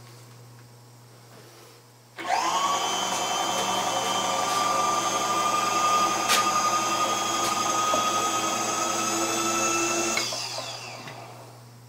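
An electric motor spins up about two seconds in, runs steadily with a high whine for about eight seconds, with one sharp click midway, then winds down.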